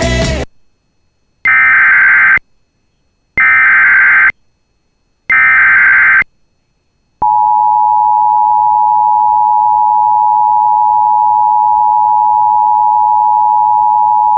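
Emergency Alert System header: three one-second bursts of SAME digital data tones about two seconds apart. Then, about seven seconds in, the steady two-tone EAS attention signal begins and holds, announcing a severe thunderstorm warning.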